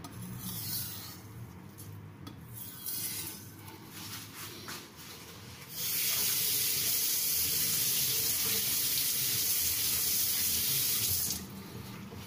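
Water running from a tap into a sink in a steady stream for about five seconds, starting about six seconds in and cutting off abruptly near the end.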